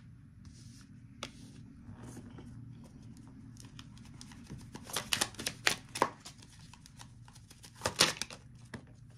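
Tarot cards being handled and shuffled: scattered light clicks and paper riffles, with quick flurries about five seconds in and again near eight seconds, over a low room hum.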